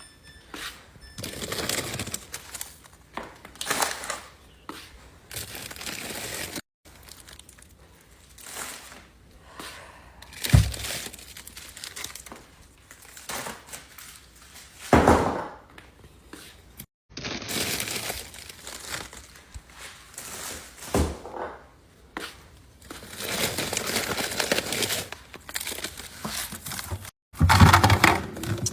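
Plastic food packaging and bags crinkling and rustling as frozen items are handled and sorted, with occasional knocks of things being set down, the loudest about ten and fifteen seconds in.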